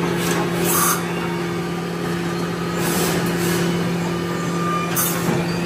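Mazak Integrex i-150 mill-turn CNC machine running during a tool change, its lathe spindle turning the bar stock: a steady two-note hum with a few brief hisses.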